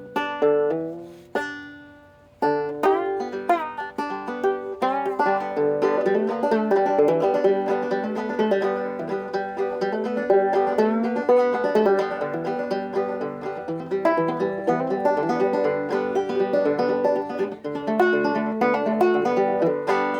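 Banjo played solo: a couple of single strummed chords that ring and fade in the first two seconds, then a steady run of quick picked notes.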